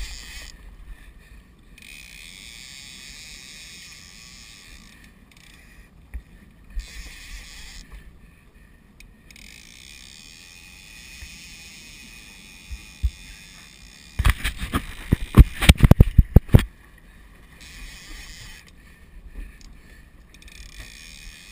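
Wind gusting over the microphone and water washing around a small boat at sea, coming and going. About two-thirds through comes a burst of loud, rapid knocks and clatter lasting a couple of seconds, the loudest thing heard.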